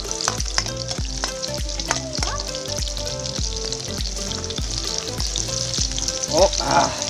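Garlic frying in hot oil in a metal pan, a steady sizzle and crackle, over background music with a steady beat.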